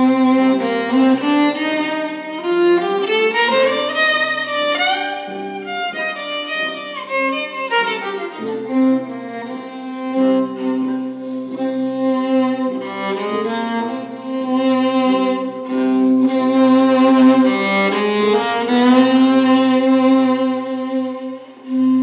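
Violin playing a slow melody: a rising run about four seconds in, then long held notes.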